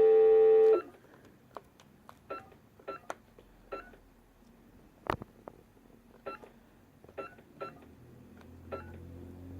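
AT&T HT 5300 cordless phone: a steady dial tone that cuts off suddenly under a second in, then about a dozen short keypad beeps, spaced unevenly, as a number is dialed, with one sharper click about five seconds in.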